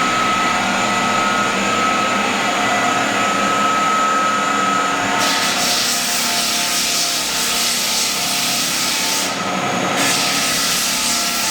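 Belt floor sander running and grinding across old heartwood pine floorboards: a steady motor whine under a loud, coarse sanding hiss that grows stronger about five seconds in and breaks off briefly about nine seconds in.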